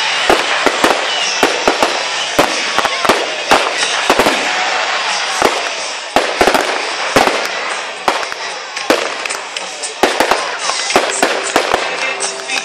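Fireworks display: aerial shells bursting in a rapid series of sharp bangs, about two a second, over continuous crackling.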